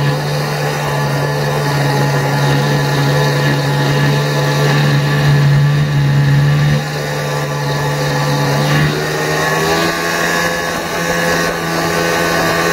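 The 85 hp engine of a home-built jet jon boat running under way, its exhaust unmuffled and loud. The engine note is steady, then rises in pitch about nine seconds in as the throttle opens.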